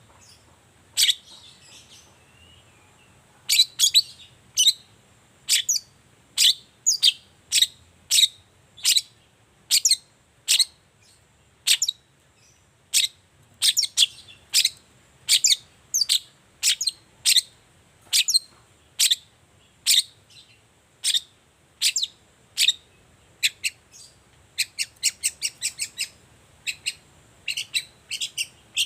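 Long-tailed shrike (cendet) giving its sharp 'toet toet' call over and over, short piercing notes about one or two a second, quickening into a rapid run near the end.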